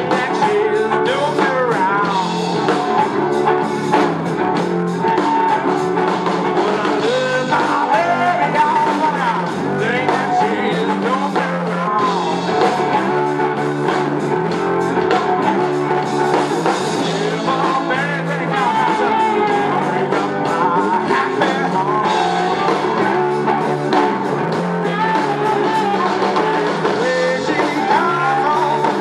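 Live electric blues band: lead guitar from a double-neck guitar built from a car muffler, over bass and drums, with harmonica coming in near the end. Pitches bend and slide through the melody lines.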